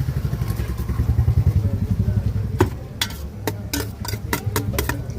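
A low, fast-pulsing engine running, with a quick series of sharp clicks or taps in the second half.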